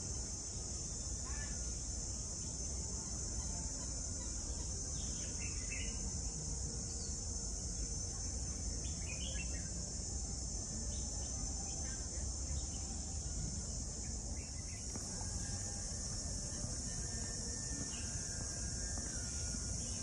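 A steady, high-pitched chorus of insects, with short bird chirps now and then, over a low rumble.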